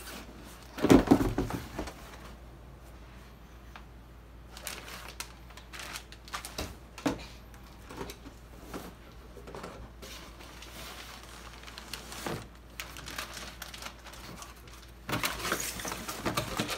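Cardboard boxes and packing being handled: scattered knocks and scrapes, with a loud knock about a second in. Near the end, plastic wrapping crinkles as a boxed RC boat in its bag is lifted out from between foam blocks.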